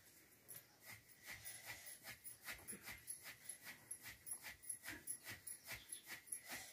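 Long wooden pestle pounding wetted pearl millet (bajra) in a stone mortar, a steady run of faint strokes at about three a second.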